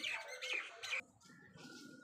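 Small birds chirping: a quick run of repeated chirps that breaks off about a second in, followed by fainter sound.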